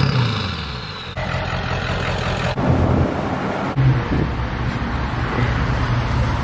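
Truck engine running, heard at the tailpipe, in a few short clips joined by sudden cuts.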